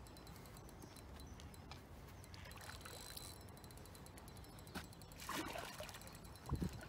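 Faint splashing and sloshing of water from a hooked fish being played near the bank, with a brief louder splash about five seconds in.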